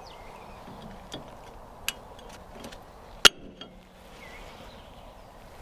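A few sharp metallic clicks and clinks, the loudest about three seconds in with a brief ring, as new brake pads are worked into a disc brake caliper.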